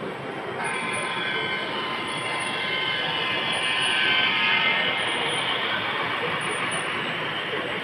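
HO-scale model diesel locomotive and its loaded hopper cars running past on the track. A high-pitched whine of several tones starts about half a second in, grows loudest as the locomotive passes about four seconds in, then fades.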